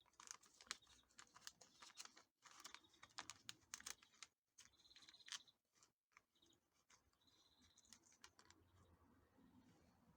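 Faint, irregular clicks and taps, like small hard objects being handled, thickest in the first half and sparser after.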